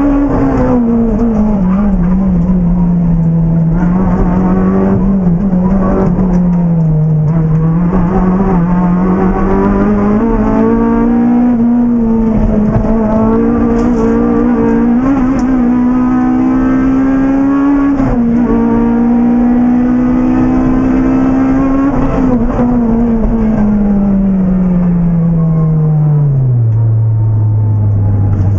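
Honda Civic Type R's K20A four-cylinder VTEC engine heard from inside the cabin, driven hard and held high in the revs, with the pitch dipping and climbing again through gear changes and lifts. Near the end the revs fall steadily as the car slows down.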